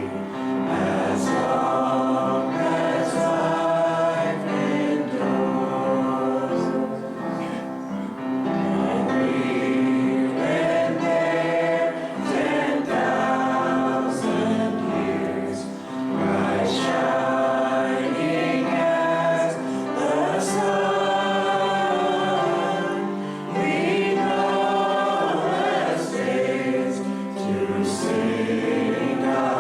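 A group of voices singing a worship song together, in long held phrases with short dips between lines.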